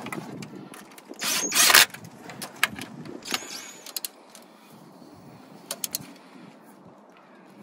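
Cordless DeWalt power driver run in two short bursts about a second in and about three seconds in, snugging the fasteners of a 4x4 axle actuator. A few light, sharp clicks of tool handling follow.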